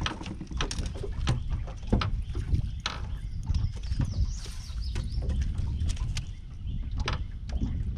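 An angler reeling in a hooked bass from a boat: irregular clicks and knocks of rod, reel and boat handling over a steady low rumble of water and wind against the boat, with a brief hiss about four seconds in.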